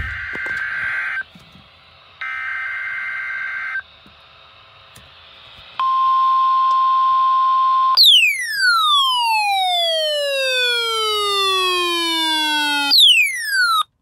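NOAA Weather Radio emergency alert signal for a Required Weekly Test: two buzzing bursts of SAME digital header data, then the steady single-pitch warning alarm tone from about six seconds in. At about eight seconds the tone gives way to a loud falling sweep that glides down for about five seconds, followed near the end by a second, shorter falling sweep.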